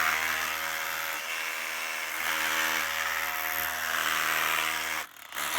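Electric power tool running steadily at speed on concrete, breaking out pieces of the slab. It stops about five seconds in and runs again briefly just before the end.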